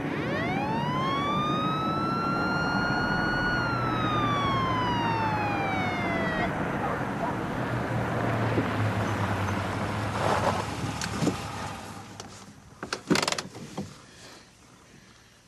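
Police car siren giving one wail, rising over the first couple of seconds and then falling away, over the noise of a car driving, signalling the driver to pull over. A few sharp knocks follow near the end as the driving noise fades.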